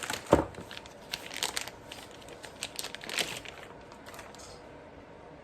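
Wrapping on individually wrapped screwdrivers crinkling and tearing as it is pulled off, with a knock just after the start. The crackling dies away about four seconds in.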